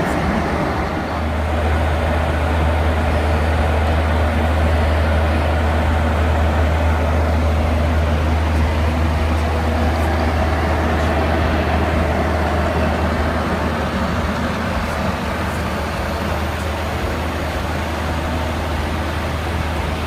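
Steady cockpit noise of a Boeing airliner in cruise: a constant rush of air over the flight deck with a strong low hum underneath.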